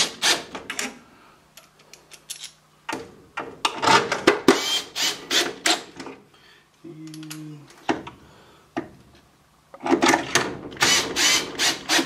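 Cordless drill with a long nut-driver extension driving the draft inducer's mounting screws: bursts of rapid clicking and rattling, with a short steady motor whine about seven seconds in.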